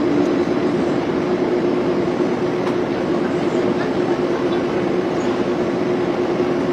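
Soft-serve ice cream machine running as it dispenses, a steady hum over a constant hiss.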